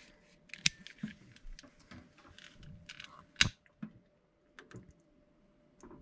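Scattered clicks and light clatter of hands handling things on a kitchen counter while a long-nosed utility lighter is readied and clicked to light a candle wick. The sharpest click comes about three and a half seconds in.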